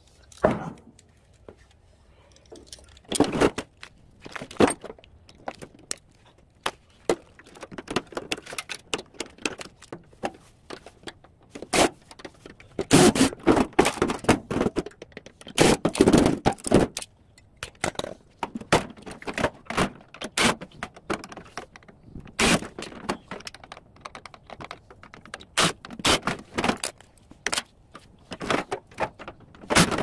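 Metal parts of a scrap microwave oven clinking, knocking and scraping as it is dismantled by hand and its transformer and magnetron are pulled out. The knocks come irregularly, busiest about halfway through.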